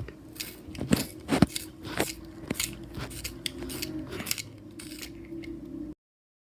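Pencil-sharpener-style 'croc croc' crunching: irregular crisp clicks and crunches, several a second and loudest about one to one and a half seconds in, over a low steady hum. The sound cuts off suddenly near the end.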